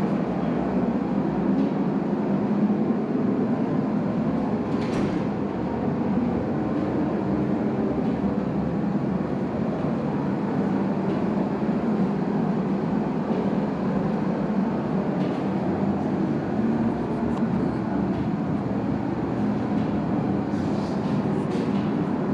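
Steady machine noise, an even low drone that holds without a break or change.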